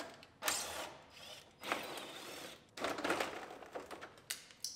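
A Chevrolet Silverado's plastic interior door trim panel being pried at and pulled loose from the door: several scraping, rattling plastic noises with a few sharp clicks, the last about four seconds in.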